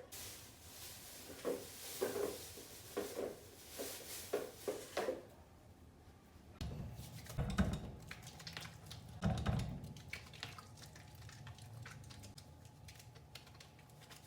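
Household objects being handled in a small room: a run of soft knocks and clatters, then two duller, low thuds.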